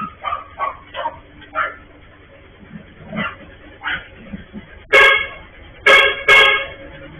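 A dog barking in short, sharp barks, several times. About five seconds in come three loud vehicle-horn honks, the last two close together; these are the loudest sounds.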